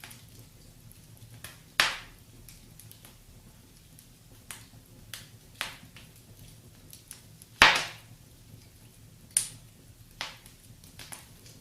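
Wood fire crackling: scattered sharp pops and snaps at irregular intervals, two loud ones about two seconds in and about two-thirds of the way through, over a faint steady low hiss.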